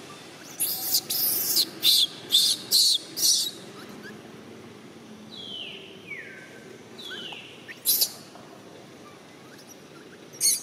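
High-pitched animal calls: a quick run of about six short shrill calls, then two calls that fall in pitch, and two more single sharp calls later.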